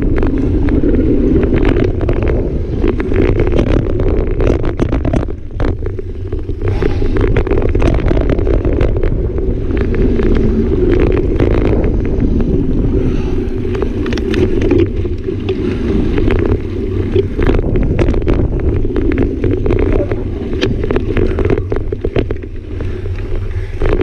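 Mountain bike ridden fast down a dirt singletrack: steady wind rush on the camera microphone and tyre rumble, broken by frequent short clicks and rattles from the bike over the bumps.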